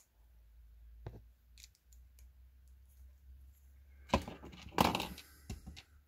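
Lego minifigure pieces being snapped together and handled on a tabletop: sharp plastic clicks about a second in and around four seconds in, with the loudest, a short clatter of clicks and rustling, near five seconds.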